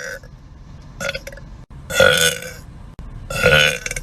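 A woman burping on command: two loud, pitched burps about a second and a half apart, with a shorter, fainter sound about a second in.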